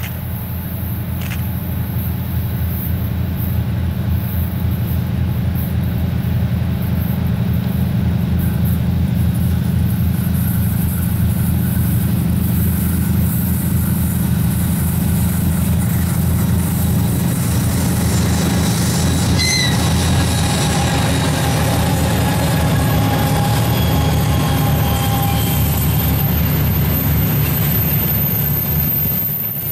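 Three-section 3TE10U diesel locomotive's two-stroke 10D100 engines working hard, a deep steady drone that grows louder over the first several seconds as the locomotive hauls a freight train toward and past the listener. Near the end the tank wagons begin rolling by.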